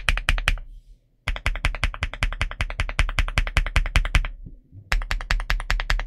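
Typing on a Marvo x ColorReco A75 low-profile mechanical keyboard with Kailh White Peach switches: a fast, even run of keystrokes, about ten a second, stopping briefly twice.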